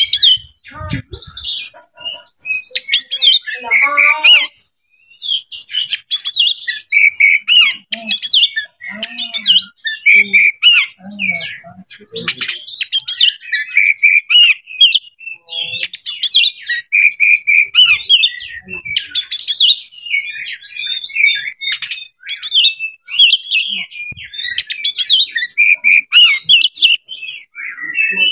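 Male oriental magpie-robin singing a fast, varied song of clear whistled notes, quick trills and harsh scratchy notes, with short pauses between phrases.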